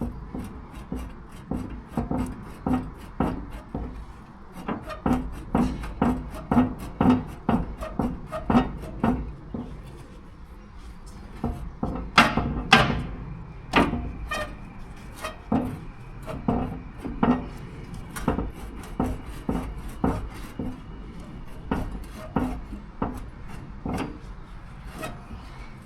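Repeated tool strokes on a narrowboat's steel tiller stock, a steady run of short knocks at about two a second, with a few louder strikes about halfway through.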